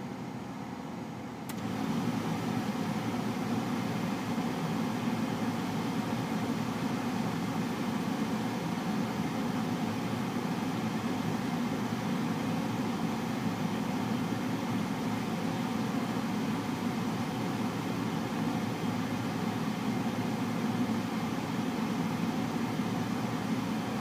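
Car air-conditioning/heater blower running steadily, with air rushing from the dash vents. About one and a half seconds in there is a click, and the blower runs louder from then on.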